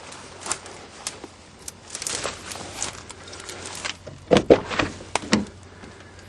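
Rustling steps, then the door of a van that has sat unused for years being unlatched and pulled open: a few loud clunks with short creaks from the hinges about four to five seconds in.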